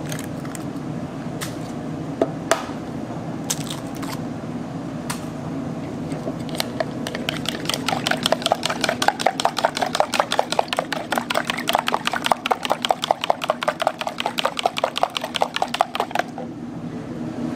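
Eggs being cracked into a plastic jug, heard as a few separate cracks and taps, then chopsticks whisking the eggs: a fast, even clicking of several strokes a second against the jug's side that runs for about ten seconds and stops near the end. A steady low hum lies underneath.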